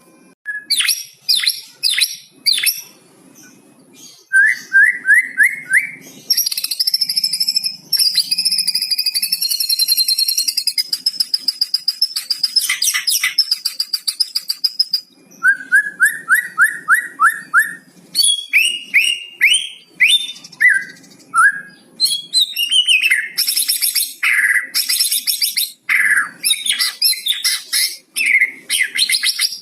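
White-rumped shama singing a long, varied song filled with mimicked cucak cungkok phrases. It mixes quick runs of rising notes, long high whistles and sharp chattering phrases.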